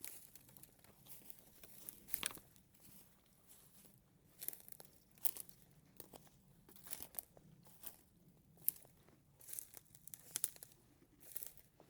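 Footsteps crunching and rustling through dry leaves, twigs and brush: irregular crackles and snaps, with one sharper snap about three-quarters of the way through.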